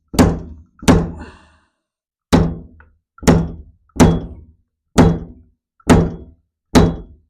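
Fork seal driver's sliding weight dropped repeatedly onto the installer, driving a new oil seal into a Yamaha TT600R fork leg: eight heavy thunks about a second apart, each ringing briefly.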